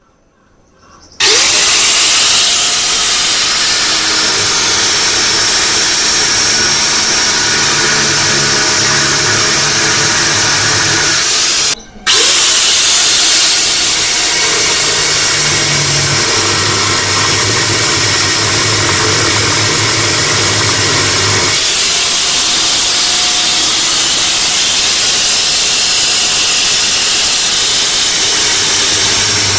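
Angle grinder cutting into a rusted, seized steel nut that holds a washing machine's gearbox, a loud steady grinding whine. It starts suddenly about a second in, stops briefly around twelve seconds, and starts again.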